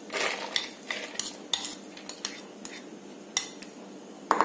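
A spatula scraping and tapping finely chopped cabbage out of a glass bowl into a plastic mixing bowl: a string of short taps and scrapes, with a louder knock near the end.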